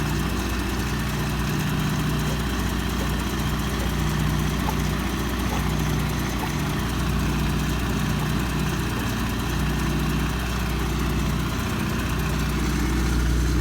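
2019 Dodge Durango engine idling steadily with the cooling system open, warming up after a thermostat replacement while the coolant is bled of air. A low hum swells and fades gently every second or so.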